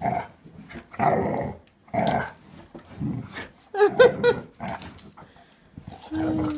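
Dog growling in play in a string of short rough bursts, about one a second, as it mouths at a hand.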